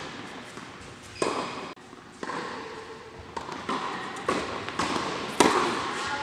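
Tennis balls knocking off rackets and bouncing on a hard indoor court, a handful of separate sharp knocks that echo in a large hall, the loudest about five seconds in.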